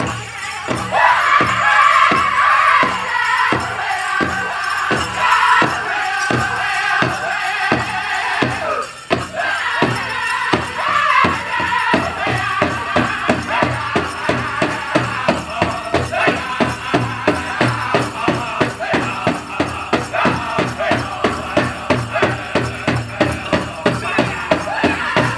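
Powwow drum group beating a big drum in a steady beat while the singers sing a high-pitched chicken dance song; the beat quickens about halfway through.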